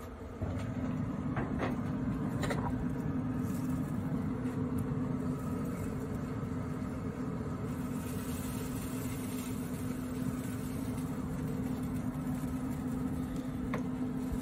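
A steady low machine hum with a rumble underneath, growing louder about half a second in, with a couple of faint knocks in the first few seconds.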